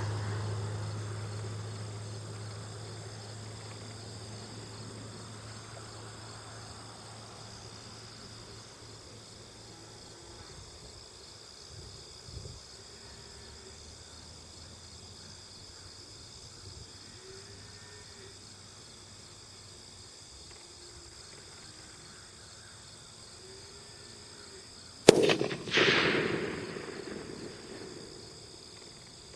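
A single rifle shot from a 6.8 SPC AR-15, sharp and loud, near the end, followed about a second later by a longer rolling burst of its report. Steady insect chirring underneath throughout.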